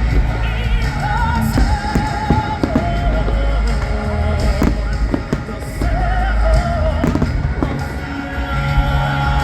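Aerial fireworks bursting with sharp bangs every second or so, over loud show music with a wavering sung melody.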